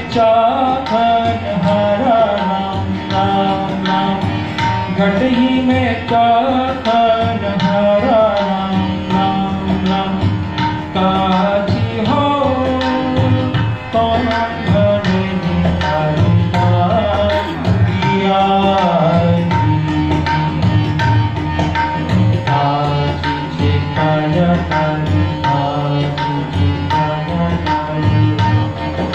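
Hindustani devotional bhajan played live: tabla keeping a steady rhythm under a harmonium melody, with a male voice singing drawn-out, gliding phrases.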